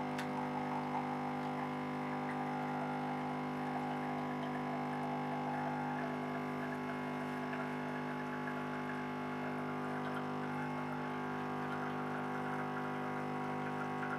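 Saeco Giro Plus bean-to-cup coffee machine brewing a long coffee: its pump runs with a steady hum while the coffee trickles into the cup.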